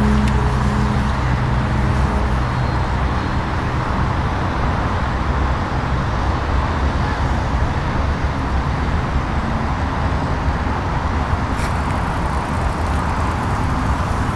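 Radio-controlled Edge 540 aerobatic model plane's engine running in flight. Its pitched tone is clear for the first couple of seconds, then gives way to a steady, even drone.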